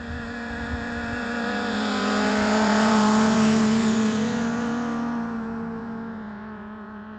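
Motorcycle passing by: its engine note grows steadily louder, is loudest about three seconds in, then fades as it moves away.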